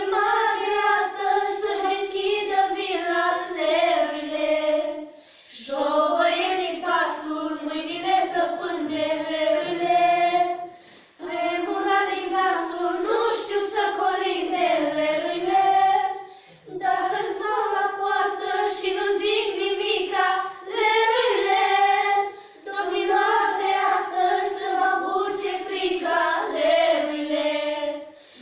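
A group of teenage girls singing a traditional Romanian Christmas carol (colind) together in unison, unaccompanied, in phrases of about five seconds with a short breath between each.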